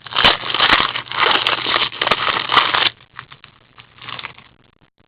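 Foil wrapper of a hockey card pack being torn open and crinkled, a dense rustling for about three seconds with a few sharp clicks, then a shorter crinkle about four seconds in.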